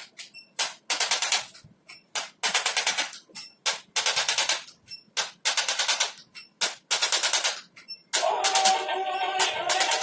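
Handheld electric percussion device used in chiropractic treatment, running in repeated short bursts of very rapid pulses, switched on and off every second or so. Background music comes in about eight seconds in.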